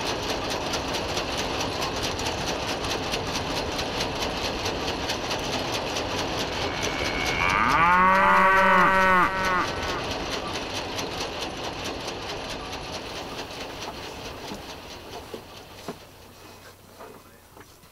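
Steady machinery noise, through which a cow gives one loud moo of about two seconds, the loudest sound here. Afterwards the machinery noise fades away, leaving a few faint ticks near the end.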